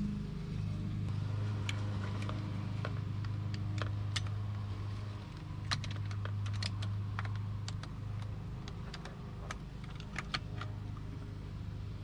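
Irregular small clicks and taps of plastic and metal parts being handled and fitted onto a truck steering column, over a steady low hum.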